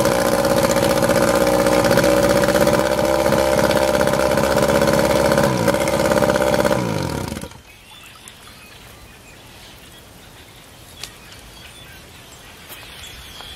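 1991 Evinrude 3 hp twin, a two-cylinder two-stroke outboard motor, running steadily in a test tank after a cold start from ten years of storage. About seven seconds in it is shut off, its pitch dropping as it winds down to a stop.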